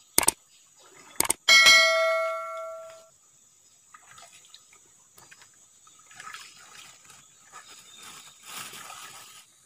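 Subscribe-button sound effect: two quick mouse clicks, then a bell ding that rings out and fades over about a second and a half. Afterwards, faint rustling and handling noises.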